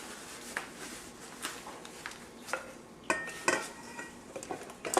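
Kitchenware being handled: scattered light clicks and knocks of bowls and utensils, with two ringing clinks a little after three seconds in.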